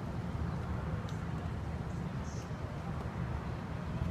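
Gusting wind buffeting the microphone: a steady, choppy low rumble.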